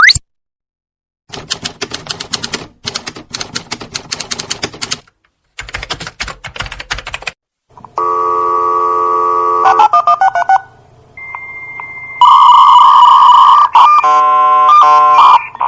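A string of separate sound effects: a short rising sweep, then three runs of rapid typing-like clicks lasting several seconds in all, followed by electronic beeps, a steady high tone and a loud ringing, alarm-like tone with stepped beeps near the end.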